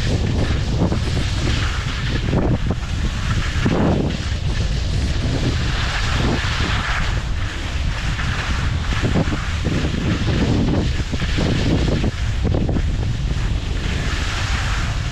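Wind buffeting the microphone of a skier's camera while skiing downhill, heard as a steady low rumble. Over it is the hiss and scrape of skis sliding over packed, rutted snow, swelling and easing every few seconds with the turns.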